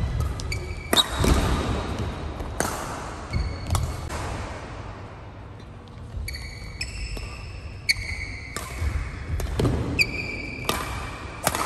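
Badminton rally: rackets strike the shuttlecock in a string of sharp cracks, and court shoes squeak briefly on the court mat between shots. The sound echoes in a large hall.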